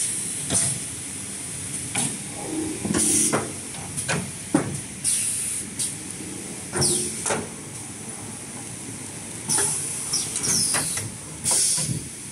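XY-AI-653D HRT roll packing machine cycling: its pneumatic cylinders let out short, loud hisses of air every second or two. Knocks and clunks of the pushers and plates come between the hisses, over the machine's steady running hum.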